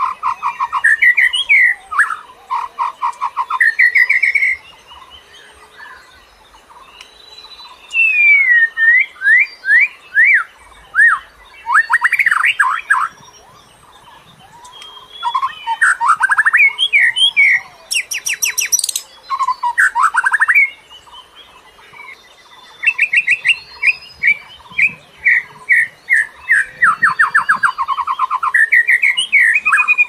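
A songbird singing phrases of quick, repeated chirps and trills, each run lasting several seconds, with short pauses between them.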